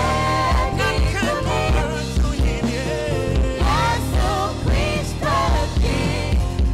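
Live gospel song: a woman and a man singing into microphones over instrumental backing with a steady bass line and beat. The voices glide and hold long notes.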